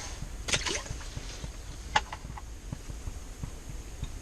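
Wind buffeting the microphone as a steady low rumble, with a brief scuffing rustle about half a second in and a sharp click about two seconds in, followed by a few light knocks.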